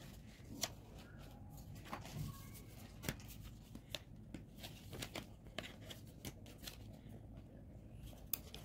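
Faint rustling and scattered light clicks of paper and card inserts being handled out of a smartphone box.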